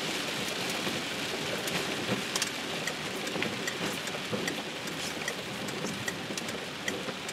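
Rain falling on a car's roof and windscreen, heard from inside the car as it drives, with scattered sharp drop clicks. From about halfway a light regular ticking joins in.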